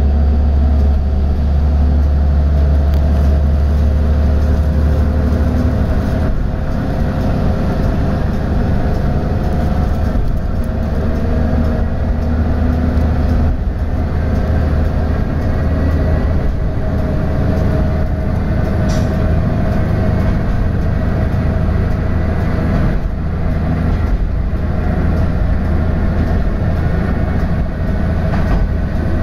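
Diesel railcar running along the line, heard from inside near the cab: a steady low engine drone with wheel-on-rail running noise and a few scattered clicks.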